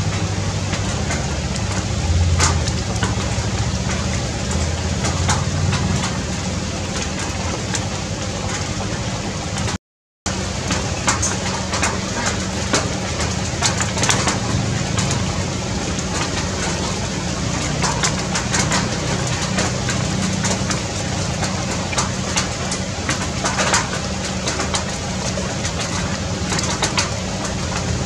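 Steady outdoor background noise with a low rumble and many faint scattered ticks; it cuts out for a moment about a third of the way in.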